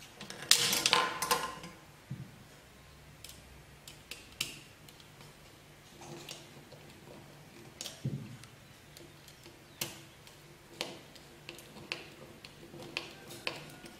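Light clicks and taps of hands handling a plastic wall switch and its wiring on a wooden table, with a louder cluster of clatter about a second in and scattered small ticks after.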